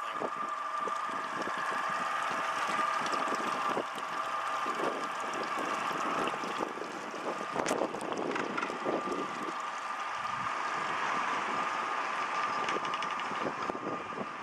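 Twin Yamaha 150 outboard motors idling with a steady whine, over a light wash of water and wind noise.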